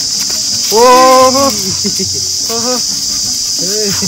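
Steady high-pitched chorus of insects. Three short pitched vocal sounds cut in: the loudest is drawn out for under a second, about a second in, and two briefer ones follow near the middle and near the end.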